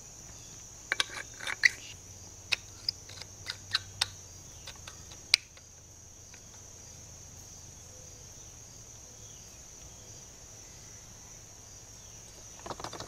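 Sharp clicks and taps as hands work the loose handle tube and metal shaft of an old ElectroPal 12-volt trolling motor, about a dozen in the first five seconds, over a steady high chirring of crickets.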